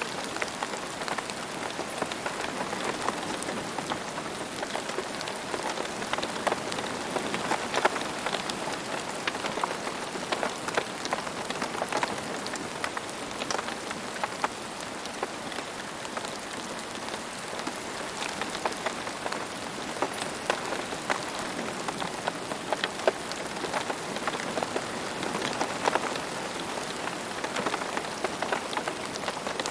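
Steady rain falling on a hard surface, a continuous hiss dotted with many close, distinct drop impacts.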